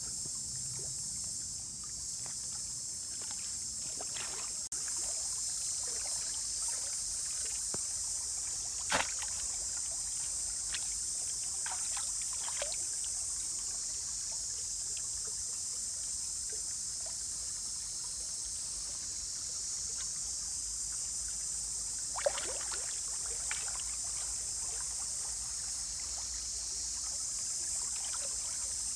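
Shallow stream water splashing and sloshing in short, scattered bursts as a man wades knee-deep and works his hands in it, with the sharpest splashes about nine and twenty-two seconds in. A steady high-pitched buzz runs underneath.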